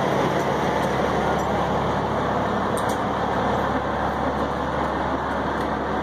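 Steady running noise of an idling diesel semi truck, an even hum with no change in speed.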